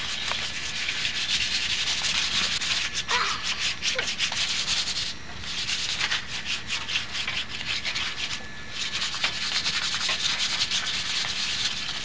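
Sandpaper rubbed by hand back and forth along a wooden walking stick to smooth it, a run of fast rasping strokes that breaks off briefly twice, about five and eight seconds in.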